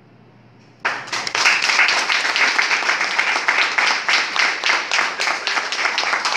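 Audience applauding, breaking out suddenly about a second in after a quiet pause and going on as a dense patter of many hands clapping.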